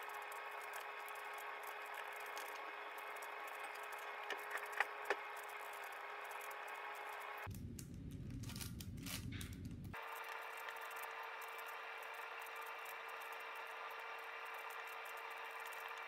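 Layers of a large plastic Rubik's-style cube being turned by hand: a continuous soft clicking and scraping of plastic, with a few sharper clicks about four to five seconds in.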